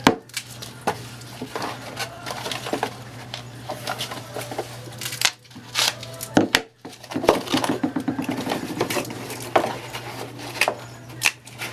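Metal rifle parts and tools clicking, knocking and clattering as they are handled, with a brief fast rattle about eight seconds in, over a steady low hum.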